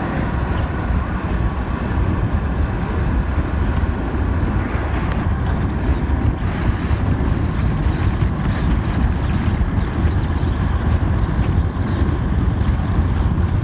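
Steady wind rush over the microphone of a motorcycle under way, with the engine and road noise beneath it.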